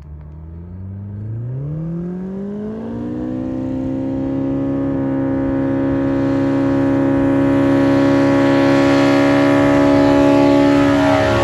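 Just Aircraft Highlander light aircraft's engine throttled up from low power to full power, its pitch climbing steeply over about two seconds and then holding at high revs, as for a takeoff run. The sound grows steadily louder as the plane nears, and the pitch drops briefly near the end as it passes.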